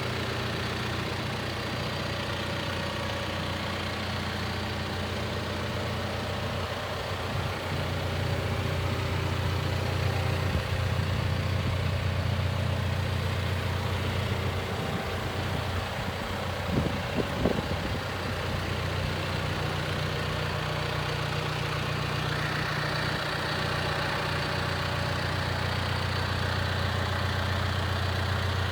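John Deere 310K backhoe loader's diesel engine running steadily, stepping up slightly about seven seconds in. A few sharp knocks stand out a little past the middle.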